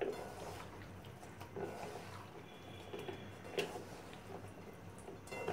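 Raw mudfish being mixed by hand in marinade in a steel pan: wet squishing and the fish slapping against the metal, coming irregularly every second or so.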